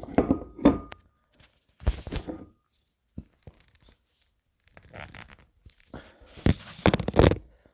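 A hand gripping and twisting a stuck metal twist-off cap on a glass Snapple bottle that will not come loose, with scraping and clicking in several bouts of effort. The longest and loudest bout comes near the end.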